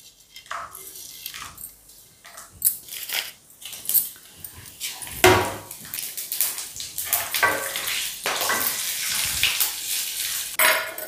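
Whole spices tipped from a plate into hot oil in a nonstick kadai and stirred with a wooden spatula: a run of clicks and clinks of the spices, plate and spatula against the pan, with a faint sizzle in the second half.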